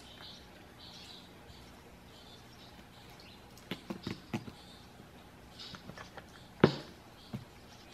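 A few light clicks and taps of a new gasket and small transmission parts being handled and set in place on a fluid-smeared surface, the sharpest tap about two-thirds of the way in.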